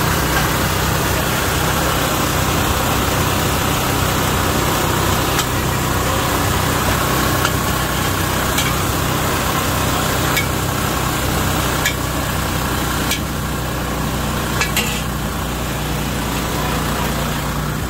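Noodles frying in a steel wok over a gas burner: a steady sizzle over a low hum, with the metal spatula clicking and scraping against the wok every second or two.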